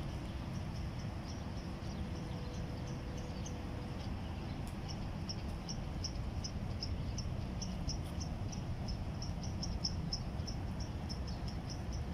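Short, high chirps repeated at a steady pitch, about four a second, growing louder about four seconds in, from a small creature in the shrubbery. A low, steady rumble lies underneath.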